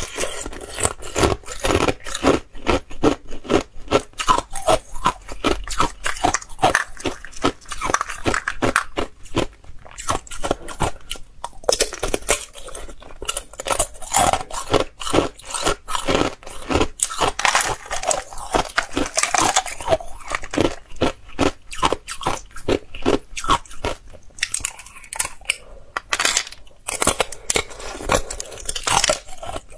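Thin clear ice being bitten and chewed, a rapid, irregular run of sharp crunches and cracks with a couple of short pauses.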